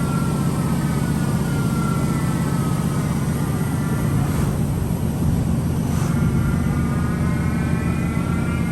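Machinery running with a steady hum and a high whine. The whine slowly falls in pitch over the first few seconds, fades, then climbs again from about six seconds in, like a motor slowing and speeding up.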